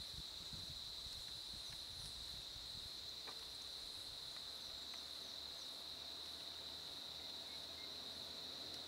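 Steady, unbroken high-pitched insect chorus.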